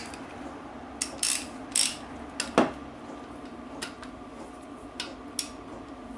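Metal tools and small engine parts clinking and clicking as they are handled at a workbench: about eight separate sharp clicks, the sharpest about two and a half seconds in, over a steady low hum.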